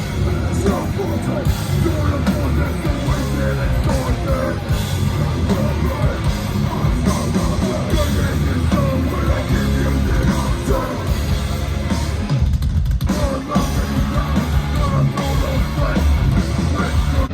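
Live heavy hardcore band playing loud, distorted guitars, bass and drums with shouted vocals, with a brief break in the guitars about two-thirds of the way through.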